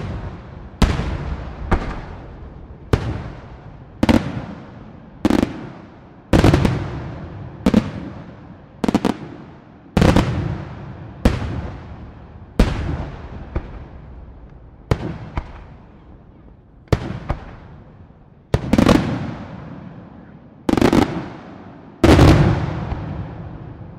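Aerial firework shells bursting one after another, about one bang a second. Each sharp report is followed by a long fading reverberation, and a few come as quick double bangs.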